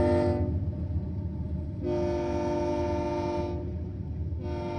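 CSX freight train's diesel locomotive air horn blowing in separate blasts for a grade crossing: one ends about half a second in, a second lasts about two seconds, and a third starts near the end. Under it, the low steady rumble of the passing diesel locomotives and freight cars.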